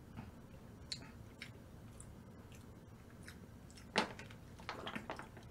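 Quiet close-up eating sounds: scattered wet chewing clicks, with a sharper click about four seconds in and a short run of clicks just after.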